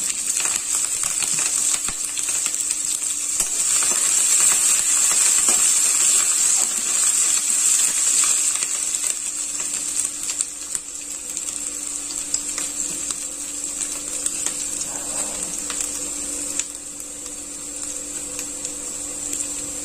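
Grated ginger and chopped green chillies sizzling and crackling in hot oil with tempered spices in a kadhai. The sizzle swells over the first few seconds and then slowly dies down as the moisture cooks off.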